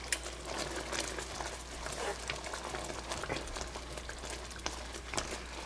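Thick, cream-enriched country gravy boiling in a pan as it thickens: a quiet bubbling scattered with many small pops.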